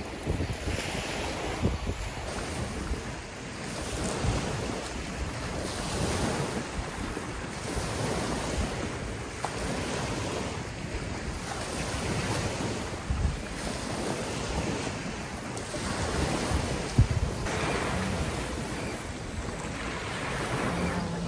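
Small waves breaking and washing up on a sandy, rocky beach, swelling and fading every few seconds, with wind rumbling on the microphone.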